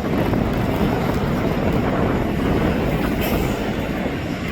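A loud, steady rumble of a passing vehicle.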